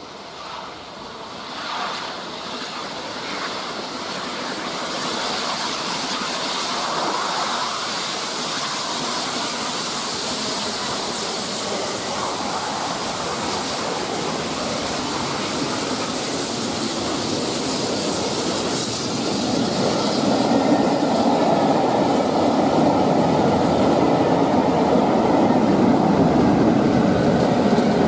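Steam locomotive 46233 'Duchess of Sutherland', an LMS Coronation Class, coasting through the station with its safety valves blowing off. A London Midland electric multiple unit pulls in along the platform at the same time. The rumble and clatter of wheels on rail grows louder, heaviest in the last third.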